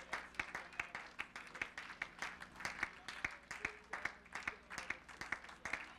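A small congregation clapping, the individual claps distinct at several a second.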